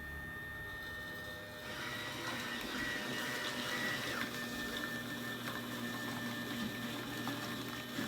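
Single-cup coffee maker brewing a cup: a steady mechanical drone with a thin high whine, growing louder about two seconds in.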